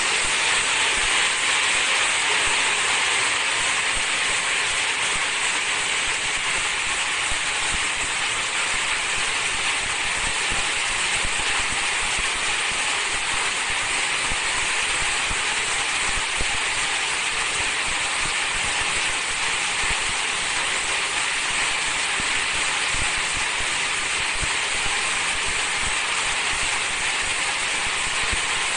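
High-speed film slitting-rewinder running, its film unwinding and rewinding with a steady hiss.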